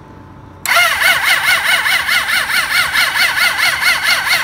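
Suzuki GSX600F's electric starter cranking the cold inline-four engine without it catching. It is a whine that rises and falls with each compression, starting about a second in and running for about four seconds. The cranking is weak because the battery has run flat, and the engine will not fire when cold.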